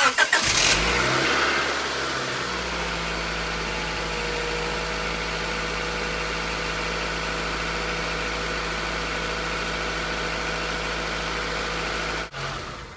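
1995 Honda Accord's four-cylinder non-VTEC engine starting at once and running a little fast for about two seconds. It then settles into a steady idle for around ten seconds before it is switched off. It runs without trouble after the distributor was reinstalled, and it "sounds good".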